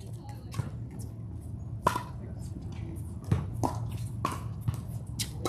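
Pickleball struck with paddles in a doubles rally: a few sharp pops, the loudest about two seconds in, with lighter clicks after it.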